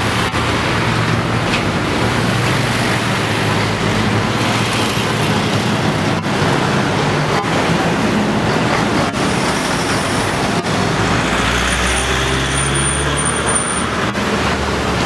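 Road noise of a car being driven, heard from inside: a steady engine hum under tyre rumble, with a few light knocks.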